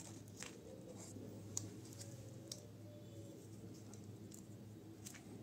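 Faint, sharp plastic clicks, about five spread through, as a flat metal pry blade levers apart the snap-fit plastic shell of a Bluetooth earphone's battery housing. A low steady hum runs underneath.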